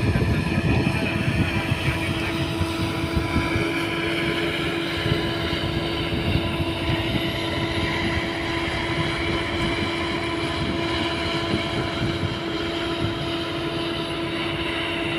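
Diesel engine of heavy construction machinery running steadily, a constant drone with a steady whine over it.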